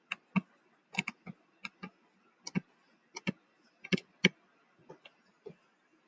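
Irregular light clicks and taps, some in quick pairs, each with a dull thud under it, from handwriting words onto a computer screen.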